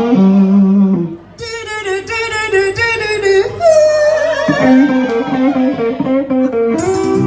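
Live band music with guitar to the fore, dipping briefly about a second in before the playing picks up again.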